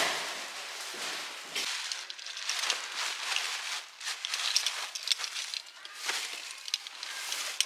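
Large plastic bags rustling and crinkling in irregular bursts as they are handled and loaded into a car's boot.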